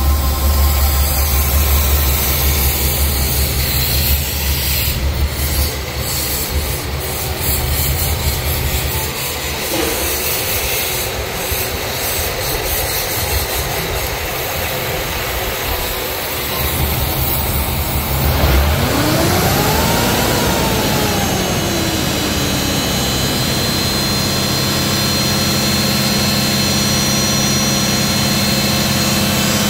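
2009 GM 6.0L gasoline V8 running at idle with a steady low hum. About twenty seconds in it is revved up once and falls back down, then runs on steadily with a high whine over it.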